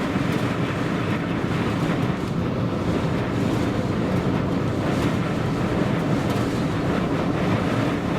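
Strong wind of about 50 miles an hour buffeting the microphone: a loud, steady rumble.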